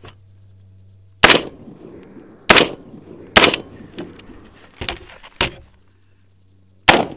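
Shots from a BCM mid-length AR-15 carbine fired from a barricade: four loud sharp reports, three of them about a second apart, then one more after a pause of several seconds. Two fainter cracks fall in that pause.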